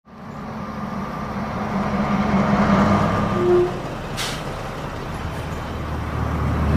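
Bus engine running as the bus pulls in to a stop, with a short brake squeal about three and a half seconds in and a quick hiss of the air brakes just after; the engine hum grows louder near the end.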